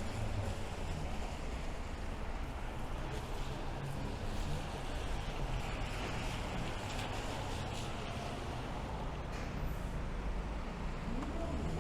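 Steady rain with a continuous rumble of city traffic.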